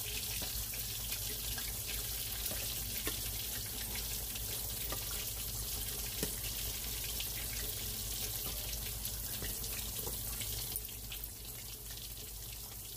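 Battered swai fish fillets frying in hot oil in a stainless skillet: a steady sizzle with scattered crackles and pops, and now and then metal tongs clicking against the fish and pan.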